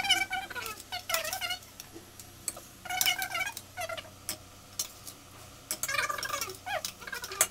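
A long steel ladle clinking against a steel bowl and cooking pot as raw chicken drumsticks are scooped into the masala. Short high-pitched cries sound several times over it, the loudest about three seconds in.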